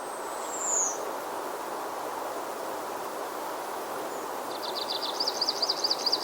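Outdoor nature ambience: a steady rushing background with wild birds calling over it. A single high whistle falls in pitch about half a second in. Near the end comes a quick run of short notes that turns into a rapid rising-and-falling trill.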